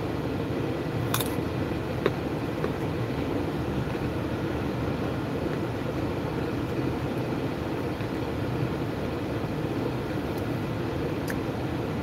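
Steady hum of a running car heard inside its cabin, with a crisp crunch about a second in as a carrot stick is bitten, and a couple of fainter chewing clicks later on.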